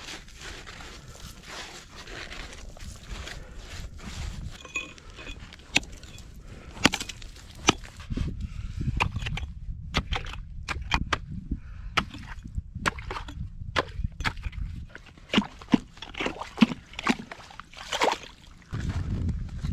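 A small axe chopping river ice to cut an ice hole: a run of sharp, irregular strikes with ice chips crunching. At first, gloved hands scrape and scoop ice slush out of the hole.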